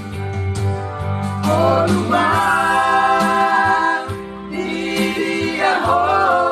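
Group of men singing together in harmony: two long phrases, each sliding up into a held chord, about a second and a half in and again about four and a half seconds in, over a steady sustained accompaniment.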